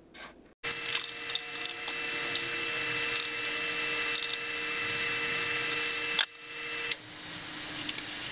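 Liquid poured in a steady stream from a glass bottle into a glass Pyrex dish holding plastic beetle traps, a continuous trickling hiss. It stops sharply with a click about six seconds in, followed by light handling of the plastic traps.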